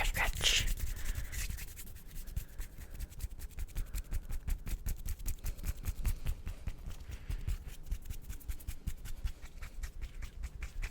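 Bare hands rubbing and scratching together fast, a dense run of quick dry strokes, several a second, louder in the first second or so.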